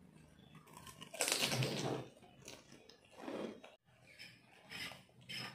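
A crisp puri shell crunching in the mouth as it is bitten, about a second in, followed by a few fainter chewing sounds.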